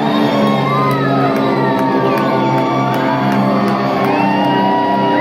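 Live rock band playing loudly, with sustained, sliding guitar lines over a steady beat and cymbal ticks, and shouts and whoops from the audience.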